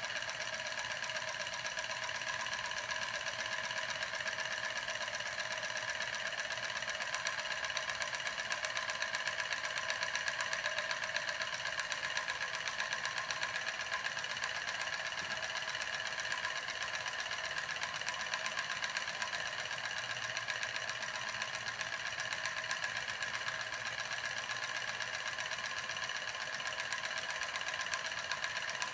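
Homemade soda-can steam engine running, its syringe piston and CD flywheel making a fast, steady mechanical chatter.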